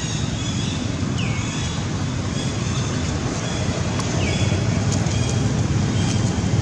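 Steady low outdoor rumble, a little louder near the end, with faint short high chirps about once a second and two brief falling squeaks, about one second and four seconds in.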